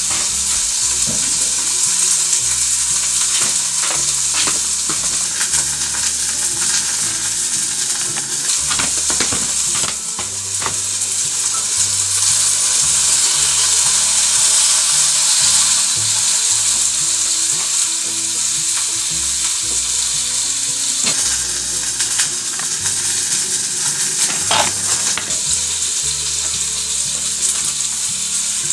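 Yakisoba sizzling as it stir-fries in a pan, a dense steady hiss with scattered sharp clicks.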